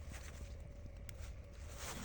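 Faint scattered clicks and light taps, like small objects being handled, over a low steady hum.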